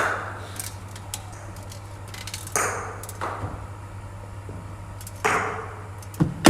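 Sharp knocks of cricket balls being delivered by a bowling machine and met by the bat, two or three pairs of sharp knocks a little under a second apart, each ringing briefly in an echoing hall. A steady low hum runs underneath.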